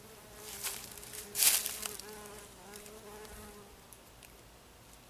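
A flying insect buzzing steadily, fading out after nearly four seconds, with a brief rustle about a second and a half in.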